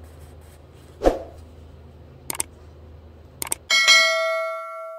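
A thump and two short clicks, then a single bright bell-like ding that rings out and fades over about a second and a half. The faint steady background hum stops abruptly as the ding begins.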